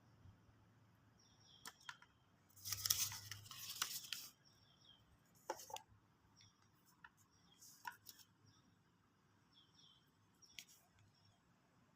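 Packaging being torn open by hand: a burst of tearing and rustling about three seconds in, followed by a few scattered clicks and handling noises.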